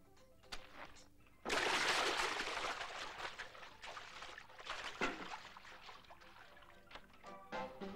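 A big splash of a person plunged into a barrel of water, about one and a half seconds in. Water sloshes and trickles as it dies away, and a few sharp knocks come later.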